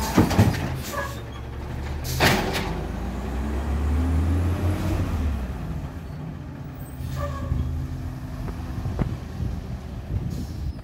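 Natural-gas Autocar WX garbage truck with an automated side-loader arm. The arm sets the cart down with a couple of knocks, and the air brakes release with a short hiss about two seconds in. The engine then revs up as the truck pulls away and fades into the distance.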